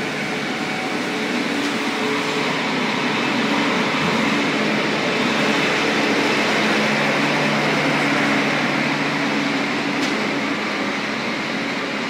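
Steady traffic din of a busy city street: a constant hum of engines and road noise, with no sudden events.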